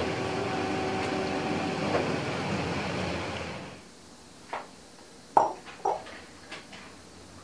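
Soft background music that fades out about three and a half seconds in. It is followed by a few light knocks of a clear glass mixing bowl being handled and set down on a tiled kitchen counter; the loudest knock has a short glassy ring.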